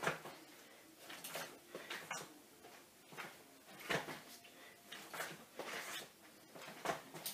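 Repeated quick scuffs and swishes of a person drilling judo throw entries against a resistance band, one movement every second or so, with feet shifting and pivoting on a tile floor.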